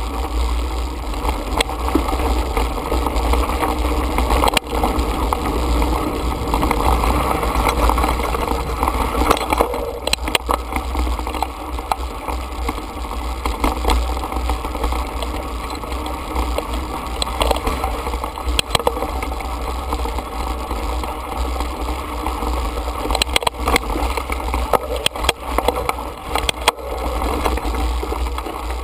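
Mountain bike riding over dirt and gravel singletrack: a steady low rumble of wind and tyre noise, with frequent sharp clicks and knocks as the bike jolts over rocks and bumps.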